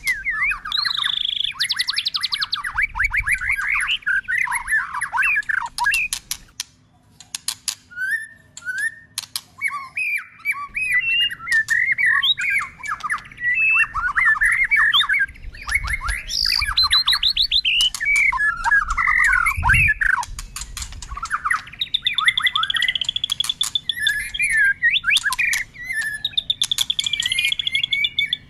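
White-rumped shama singing a long, unbroken song of varied whistled phrases and fast trills mixed with sharp clicks, switching from one tune to the next. For a few seconds about a quarter of the way in, the song thins to scattered clicks and short notes.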